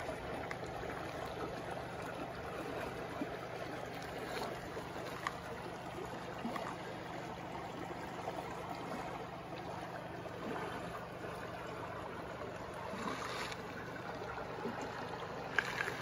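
Shallow stream running over rocks, a steady gentle wash of water with a few faint ticks.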